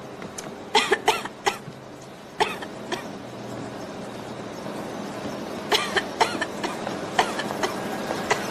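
A person coughing in bouts of short hacks: a cluster about a second in, a couple more around two and a half to three seconds, and another run from about six seconds on. Behind the coughs is a steady machinery noise from the mill floor.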